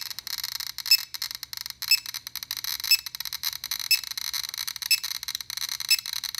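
GQ GMC Geiger counter clicking rapidly as it detects radiation from uranium ore, its count rising from about 290 to 490 counts per minute. A short high beep sounds about once a second over the clicks, the counter's alarm for a high radiation reading.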